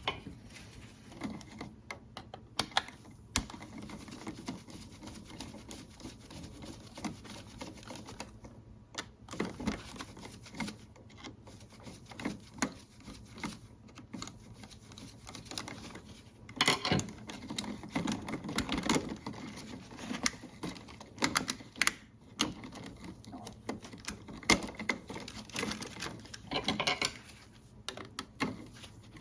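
Irregular small clicks, taps and scrapes of hand work on an old three-way light switch: a screwdriver loosening the terminal screws and the wires being unhooked from them.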